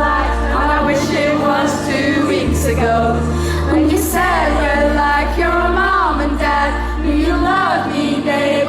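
Live pop song played by a band with a deep bass line, sung by a woman with many voices singing along.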